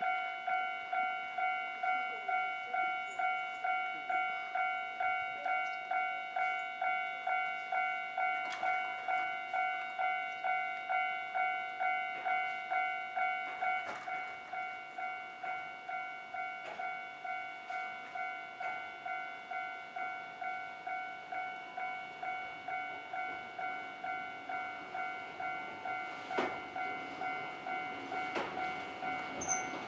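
A Japanese railway level-crossing alarm rings on the Kintetsu Ikoma Cable Line funicular: steady electronic bell tones repeating roughly twice a second, a little quieter about halfway through. A few knocks and a low rumble build near the end.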